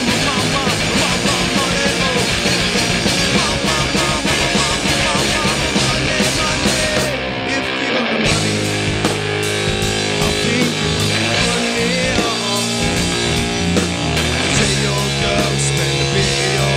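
A rock band playing live: drum kit, electric guitars and bass, with no vocals. The cymbals drop out for about a second a little before halfway, then the band carries on.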